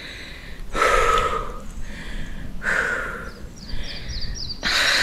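A pregnant woman breathing heavily: three long gasping breaths about two seconds apart, from the discomfort of a stitch in her belly.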